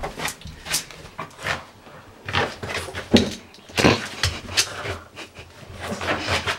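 A small wet dog rubbing and scrubbing its face and body along a coarse doormat after a bath: scratchy scuffing strokes at an uneven pace, a few with a soft thump.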